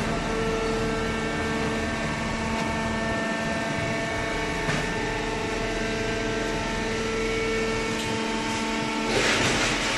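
Paper baler machine running with a steady mechanical hum made of several steady tones, and a short rush of hiss near the end.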